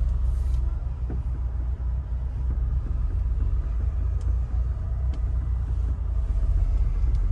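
Inside a Nissan Tiida's cabin: a steady low rumble from the car, with a few faint brief knocks about a second in and again around four and five seconds in. The knocks are the right-front suspension noise that the mechanic traces to the strut top mount and bump-stop kit.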